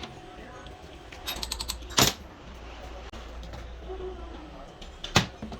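Parts and tools being handled: a quick rattle of clicks about a second and a half in, then two sharp knocks, one about two seconds in and one near the end, over a low steady hum.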